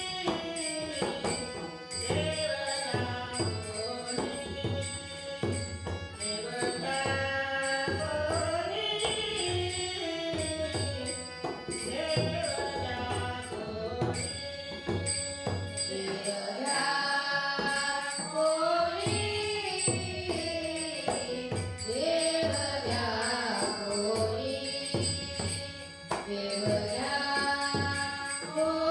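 Women's bhajan group singing a Marathi devotional abhang with a woman's lead voice, over a steady drum beat and jingling percussion.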